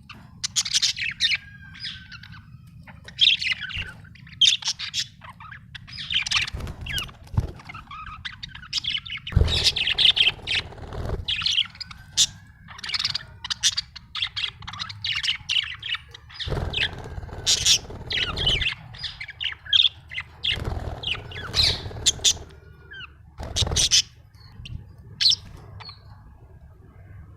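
A budgerigar chirping and chattering in a rapid, busy series of short chirps and squawks, with a few louder bursts among them. A steady low hum runs underneath.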